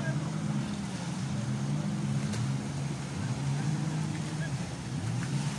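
Jet ski engines running at speed, a steady low drone that shifts slightly in pitch as the craft move.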